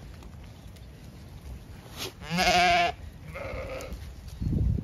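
Zwartbles sheep bleating at close range: one loud, wavering bleat a little over two seconds in and a fainter one about a second later. A short low rumble follows near the end.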